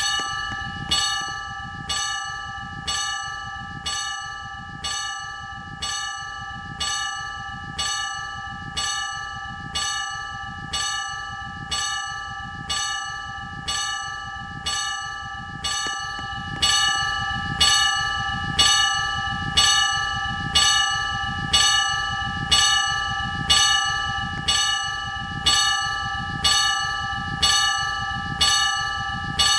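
Level crossing warning bell striking steadily about once a second, each stroke ringing on; it grows louder about halfway through.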